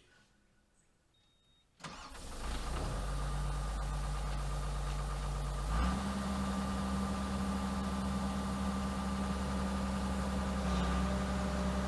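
Excavator's diesel engine starting about two seconds in, then running steadily; its speed steps up about six seconds in and a little again near the end.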